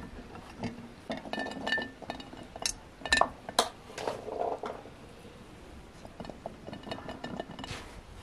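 Fresh cranberries dropped by hand into glass jars, clicking and clinking against the glass in an irregular scatter, some clinks ringing briefly; the loudest come around three to four seconds in.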